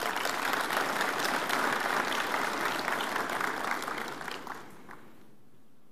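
A large audience applauding, with the clapping dying away about four and a half seconds in.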